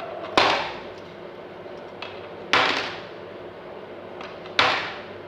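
Coins dropped one at a time through the slot of a plastic Iron Man electronic piggy bank, each landing inside with a sharp clink that rings briefly: three drops about two seconds apart.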